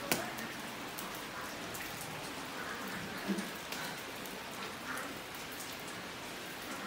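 Heavy rain falling steadily, a constant even hiss. There is a sharp click just after the start and a few faint knocks about three seconds in.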